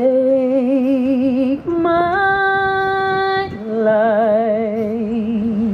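A woman singing solo into a handheld microphone, holding three long notes with vibrato. The middle note is higher and steadier.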